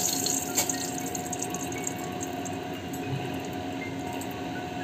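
Whole spices (cardamom and cinnamon) sizzling in hot mustard oil in a black iron kadai: a steady crackling hiss with small spits, and one sharp pop about half a second in.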